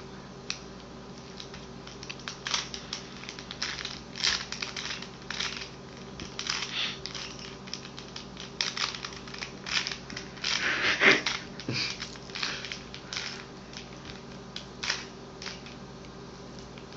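Rubik's cube being turned quickly, an irregular run of plastic clicks and clacks in quick clusters with short pauses between them. A faint steady hum sits underneath.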